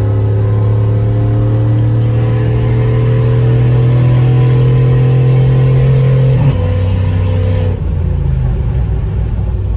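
Car engine and exhaust under hard acceleration, a loud steady drone slowly climbing in pitch for about six seconds. The note shifts about six and a half seconds in, then the engine eases off about eight seconds in.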